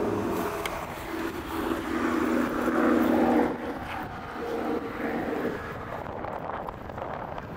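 Motor vehicle engine hum in street traffic, swelling to its loudest about three seconds in and cutting off suddenly, then returning more faintly.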